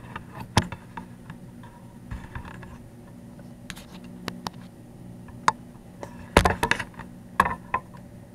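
Handling noise: scattered light clicks and taps, with a cluster of louder knocks about six and a half seconds in, over a faint steady low hum.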